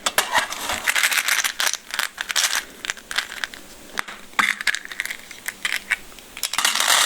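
Handling noise from an M&M's can being opened and its contents handled: a fast run of small clicks, rattles and crinkling, louder near the end.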